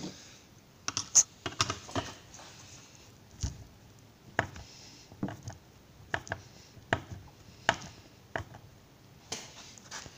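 Irregular sharp clicks and taps of a tool on the metal screws and aluminium case of an ECU, as its lid-removal screws are turned a little at a time to jack the glued lid up.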